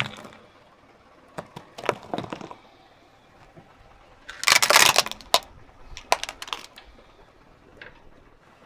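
A car tyre rolling over and crushing things on asphalt: a few soft cracks as bars of soap are squashed, then a loud burst of cracking and snapping plastic about four and a half seconds in as two toy motorcycles are crushed flat, followed by a few smaller snaps.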